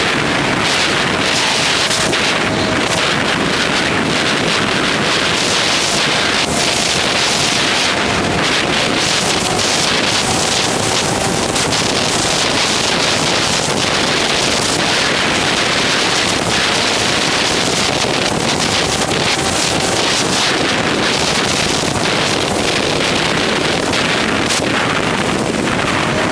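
Constant wind roar on a helmet-mounted GoPro 3 at road speed on a motorcycle, with a faint, steady engine note underneath.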